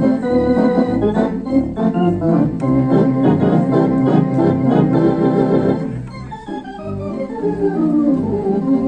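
Theatre organ played live: full sustained chords over a pulsing pedal bass line, then about six seconds in it drops quieter for a run of notes falling in pitch.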